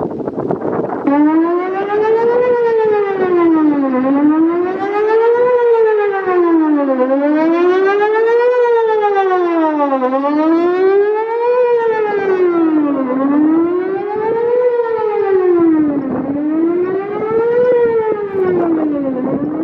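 Whelen WPS-4008 electronic outdoor warning siren sounding its Best Possible Protection tone: a wailing pitch that starts about a second in and sweeps smoothly up and down about every three seconds, with wind noise on the microphone. The siren is weak for its type, which the recordist puts down to only half a driver still working.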